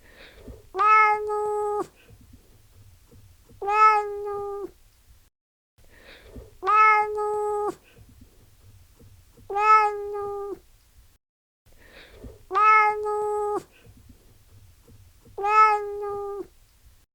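Domestic cat meowing, six evenly spaced meows about three seconds apart, each a steady, drawn-out call of about a second.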